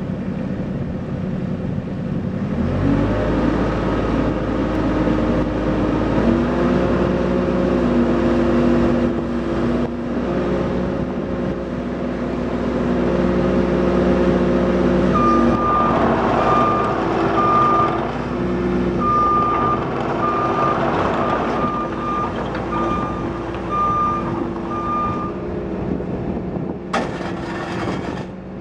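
2007 Caterpillar 302.5C mini excavator's diesel engine running, throttled up about three seconds in, its note shifting as the hydraulics work the boom and bucket. From about halfway, a travel alarm sounds a run of short high beeps for about ten seconds while the machine moves.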